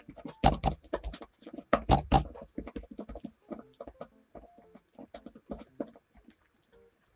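Quick taps and knocks from bread dough being handled on a work surface. They come dense and loudest for the first two seconds or so, then lighter and sparser.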